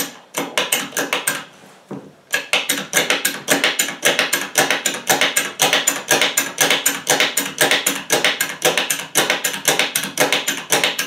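Hydraulic bottle jack being pumped rapidly with the release valve open and the ram held down, cycling oil to purge trapped air from under the ram. It makes a fast, even run of sharp clicks, with a short break about two seconds in.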